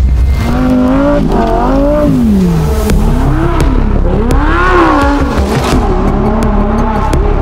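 Lamborghini Huracán Sterrato's V10 engine revving hard as the car drifts on snow, its pitch repeatedly rising and falling with the throttle.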